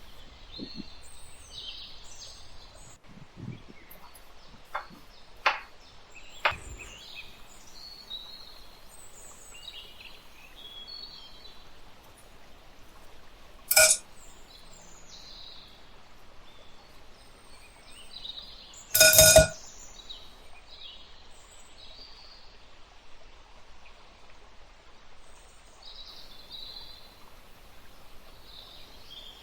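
Birds chirping in the background over a steady hum, with a few light clicks early on. Two loud ringing clinks of metal cookware or utensils come about 14 and 19 seconds in, the second one longer.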